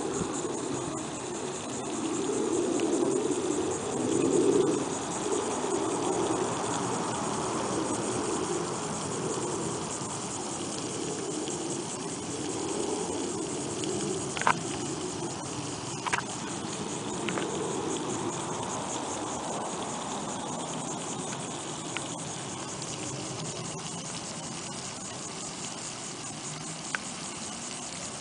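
Steady outdoor ambience: a faint high insect chirring over a low rumble that is louder in the first several seconds and then settles, with a few sharp clicks in the middle.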